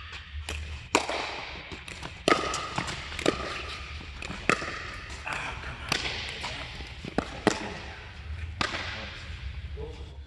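Pickleball rally: paddles striking the hollow plastic ball with sharp pops about once a second, each followed by a short echo in the large court hall.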